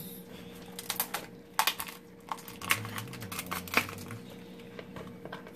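Irregular clicks and crackles of a raw lobster's shell being pried apart by hand as the carapace is pulled off the body, with a few sharper snaps.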